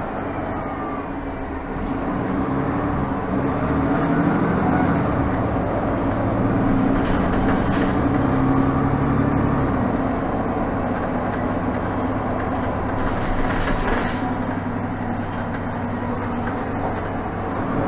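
2017 Nova Bus LFS diesel city bus under way, heard from inside the cabin: steady engine hum and road noise, growing louder about two seconds in, with a few short rattles.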